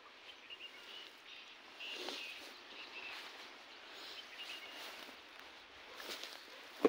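Quiet outdoor ambience: footsteps rustling through dry grass and leaves, with small bird chirps now and then. A single sharp knock comes right at the end.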